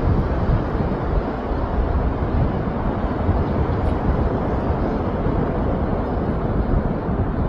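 Steady rushing beach wind and surf, with a low rumble on the microphone.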